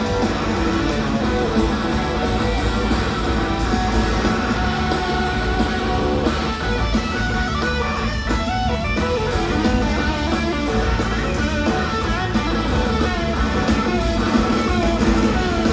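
Live blues-rock band jamming, with an electric guitar lead over bass guitar, organ and drums.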